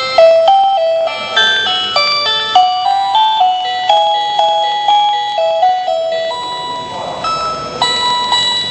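Children's electronic toy organ playing a simple melody in plain, beepy electronic tones, a few short notes a second.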